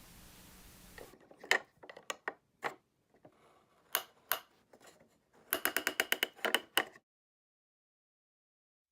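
Sharp mechanical clicks: a few scattered at first, then a quick even run of about ten clicks a second for about a second and a half that cuts off suddenly into silence.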